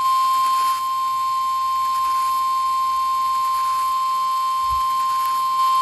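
NOAA Weather Radio 1050 Hz warning alarm tone: a single steady high-pitched tone held unbroken over faint radio hiss. It signals that a severe thunderstorm warning broadcast follows.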